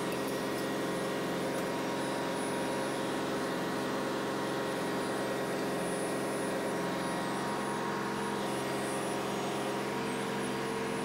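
Steady engine-room machinery drone: several running machines give a constant hum with a few steady whines over it, with no change or break.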